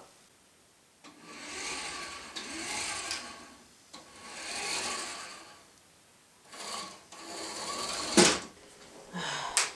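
Small electric motor and wheels of a motorised toy base whirring as it drives across a wooden floor, in three spells with short breaks. A sharp knock about eight seconds in.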